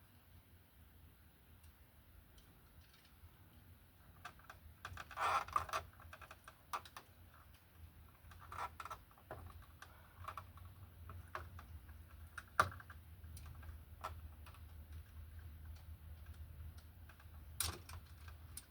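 Irregular light clicks and rustling from hands working an electrical plug and wiring, with a cluster of clicks about five seconds in and sharp single clicks near the middle and near the end, over a faint steady low hum.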